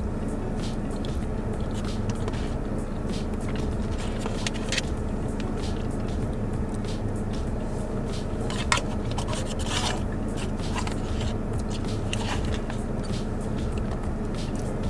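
Close-up eating sounds: chewing, with a fork clicking and scraping now and then against a plastic takeout bowl, the sharpest click about nine seconds in. Under it a steady low hum of a car cabin.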